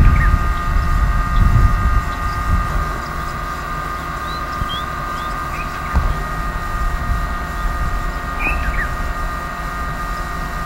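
Wind rumbling on the microphone, loudest in the first couple of seconds and then easing, under a steady high hum. A few short chirps come through, about four and a half and eight and a half seconds in.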